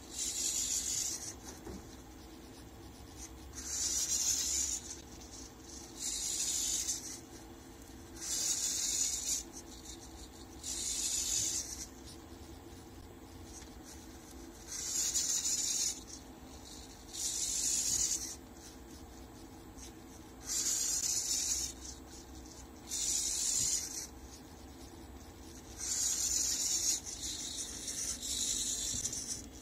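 Felt-tip marker held by a servo robot arm rubbing across paper in about eleven separate pen strokes, each about a second long with short pauses between them, over a faint steady hum.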